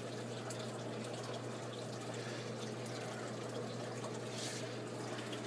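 Steady trickle of water running in an aquaponics system, with a low steady hum beneath it.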